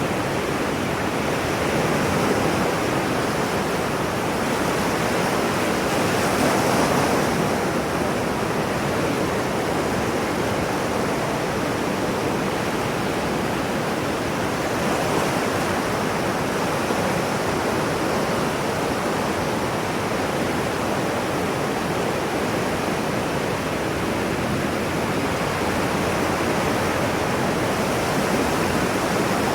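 Ocean waves washing on a shore in a steady rush of surf, swelling gently now and then, about 7 seconds in most of all.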